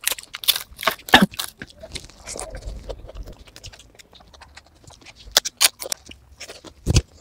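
Crisp papad (papadum) being snapped by hand and chewed: a quick run of sharp crackles in the first second and a half, then quieter chewing, with a few more crunches later.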